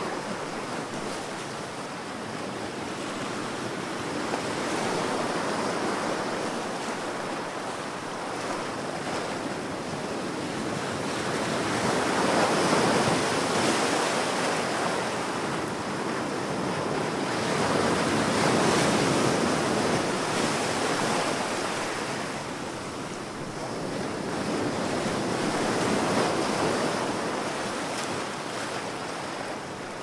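Ocean surf: waves breaking and washing in as a steady rush, swelling and easing four times, about every six to eight seconds.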